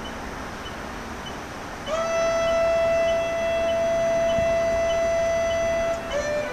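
Saxophone practice: after a couple of seconds of only a metronome ticking, the saxophone plays one long held note for about four seconds, then a few short lower notes near the end, echoing off the riverbank. Steady short high beeps from the practice device set beside the player tick about three times a second throughout.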